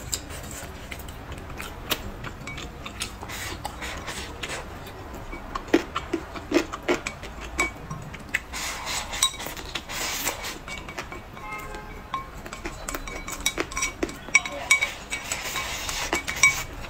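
Wooden chopsticks clicking and scraping against a ceramic bowl held at the mouth as the last of the rice is shovelled in, many sharp irregular clinks.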